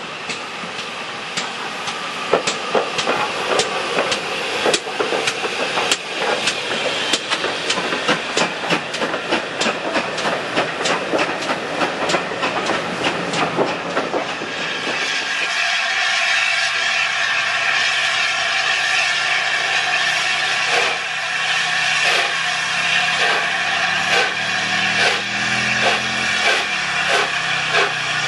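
Steam locomotive, an ex-GWR Hall class 4-6-0, working a passenger train towards the listener, its rhythmic exhaust beats and wheel clatter growing louder. After a cut about halfway through, a steam locomotive at a station hisses steadily while slow, evenly spaced exhaust beats quicken as it starts away.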